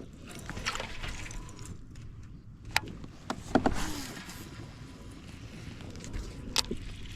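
Fishing reel cranking during a retrieve, with a few sharp clicks and knocks. The reel sounds dry and in need of oil.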